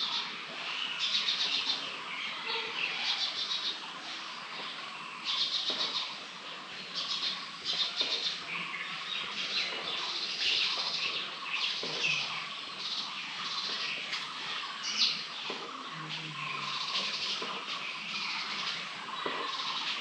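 Many small birds chirping and calling together in a dense, continuous chorus, with rapid trilled bursts every second or two.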